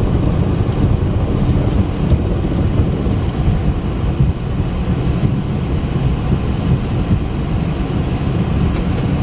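Steady low rumble heard in the cockpit of a Boeing 737-400 rolling out on the runway after touchdown, from the wheels on the pavement, the engines and the airflow while the jet slows.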